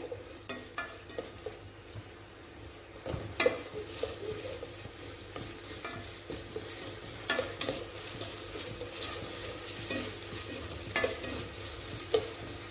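Sliced onions sizzling in hot oil in an enamel pot, being fried to a light golden colour, while a spatula stirs and scrapes them. The spatula knocks sharply against the pot several times.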